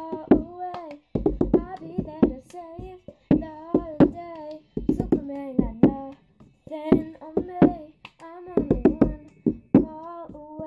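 Cup song routine: hand claps, with a plastic cup tapped, flipped and knocked down on a hardcover book in a repeating rhythm. A girl sings a melody over it.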